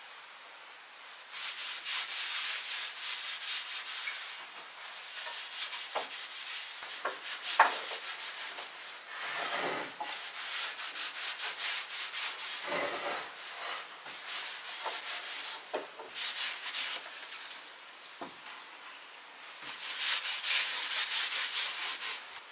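A cloth is being wiped back and forth across a wooden shelf, making repeated rubbing strokes in several spells. There is one sharp knock about a third of the way in.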